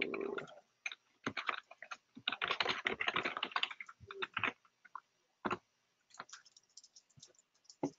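Typing on a computer keyboard: two quick runs of key presses, about a second in and again from about two to nearly four seconds, then a few scattered single key taps.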